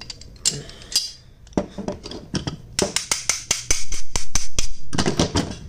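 Metal clicks and clinks of a partly stripped 30 bore pistol's parts being handled and knocked together. Scattered clicks at first, then a quick run of clicks and clinks through the second half.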